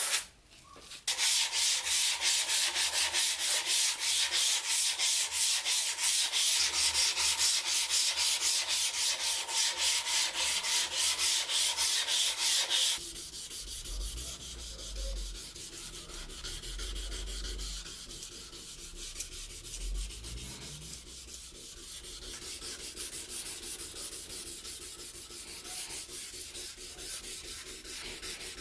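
Rusted metal being sanded by hand with rapid, regular back-and-forth strokes. The strokes are loud for the first half, then go on lighter and quieter from about halfway through.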